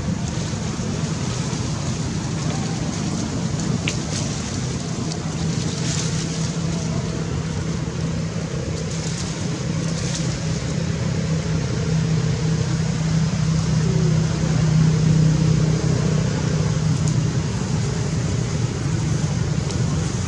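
A steady low engine hum, like a motor vehicle running nearby, that swells about three-quarters of the way through, with a few faint clicks.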